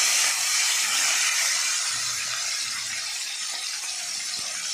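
Koi fish (climbing perch) coated in salt and turmeric sizzling in hot oil in a wok, a steady hiss that eases off slightly over a few seconds.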